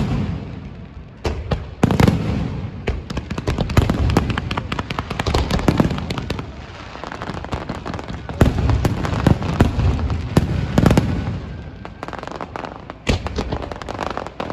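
Fireworks going off in rapid succession: dense crackling and popping, with heavier bangs coming in waves every few seconds.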